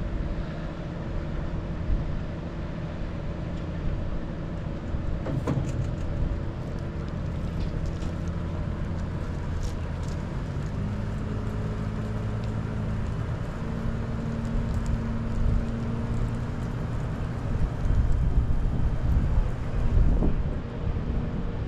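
Tractor engine running steadily to drive the hydraulics as a 12 m vertical slurry dribble bar's booms unfold to working width. About halfway through, a higher steady tone joins the hum and shifts again a few seconds later.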